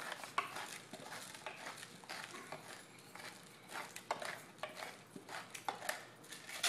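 Pepper mill grinding pepper over the pasta: a run of small, irregular crunching clicks.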